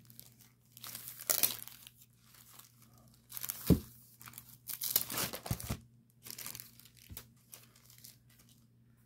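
Clear plastic sleeve around a rolled diamond-painting canvas crinkling and rustling in irregular bursts as it is handled, with a knock nearly four seconds in. A faint steady hum sits underneath.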